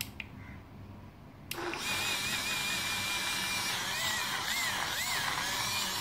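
Portable rechargeable juice blender's small motor starting up after a couple of light clicks, about a second and a half in, then running steadily with a high whine that wavers in pitch as it blends chopped apple in fresh milk.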